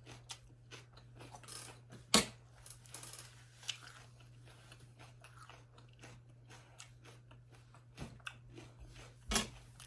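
Close-miked chewing of salad, with crisp crunches and small wet mouth clicks, plus a sharper click about two seconds in and another near the end. A steady low hum runs underneath.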